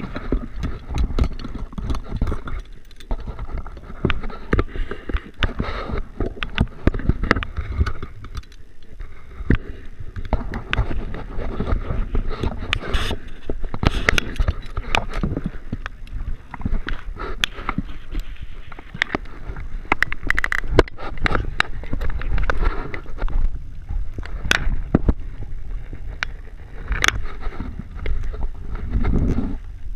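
Close handling noise on a body-worn camera: rubbing and knocks against rope and gear, many sharp clicks over a constant low rumble.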